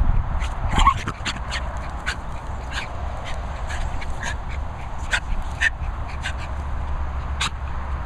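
Small dogs playing, a West Highland white terrier and a Bichon frise: a string of short, sharp yips and snorts, about one or two a second, one of them a rising cry about a second in. A steady low rumble runs underneath.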